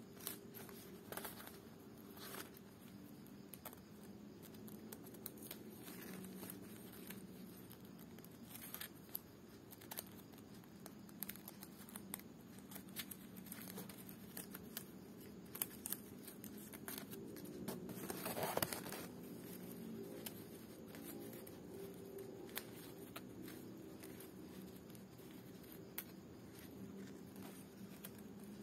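Faint rustling and light tapping of dry lontar palm-leaf (ental) pieces being handled and laid in place by hand, with a louder rustle about 18 seconds in, over a low steady hum.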